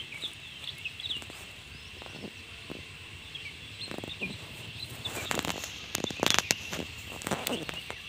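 Birds chirping over a steady high insect drone, with crackling, rustling handling noises from about five seconds in, loudest just past six seconds.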